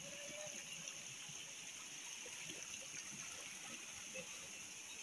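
Steady hiss of rainwater runoff flowing through a small muddy channel, with faint trickling.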